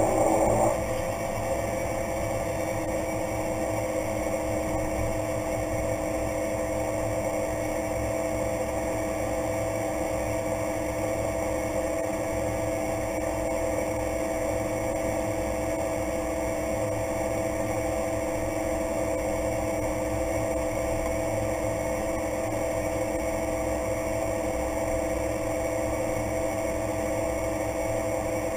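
Single Pratt & Whitney PT6A turboprop engine and propeller of a Cessna Grand Caravan at low taxi power, heard from inside the cockpit: a steady drone and whine with several held tones. About a second in, a louder rushing noise drops away as the power comes back after the landing roll.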